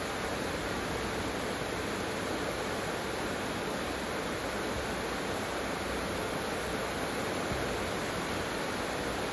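Heavy rain falling in a steady downpour, an even hiss of rain with no breaks.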